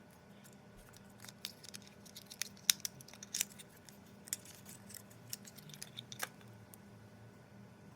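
Packaging being handled and opened by hand: irregular sharp clicks and crinkles, busiest between about one and three and a half seconds in, over a faint steady hum.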